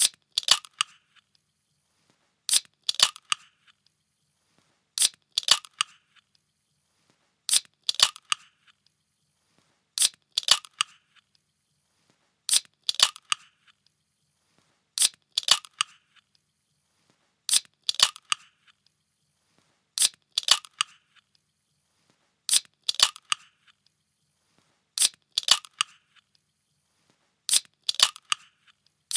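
A metal can being opened, the same short sharp crack with a brief tail repeated about every two and a half seconds, roughly twelve times.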